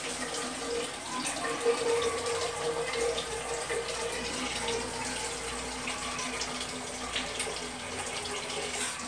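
Kitchen faucet running steadily into a cooking pot, filling it with water.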